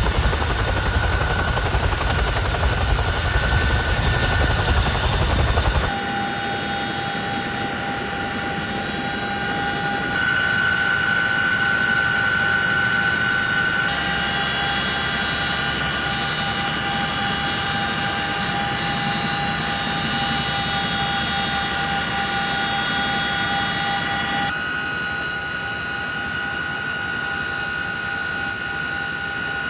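Helicopter running: a steady turbine whine over rotor and engine noise, with a heavy low rumble for the first six seconds. The sound changes abruptly several times, as if cut between shots.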